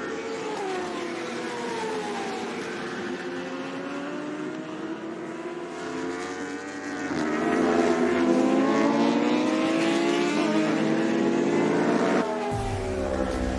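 Racing motorcycle engines at high revs on track, the pitch sliding down and then climbing again and again as the bikes accelerate through the gears, getting louder about seven seconds in. Near the end the sound changes abruptly to a lower, steadier engine rumble.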